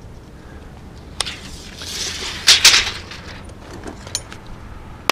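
Steel tape measure being drawn out for a measurement: a sharp click about a second in, then a rasping sound that peaks twice around the middle, and a few light clicks near the end.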